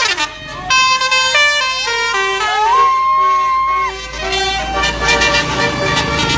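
Bus telolet horn, a set of musical air horns playing a tune: several steady notes joined by sliding rises in pitch, with one long high note near the middle.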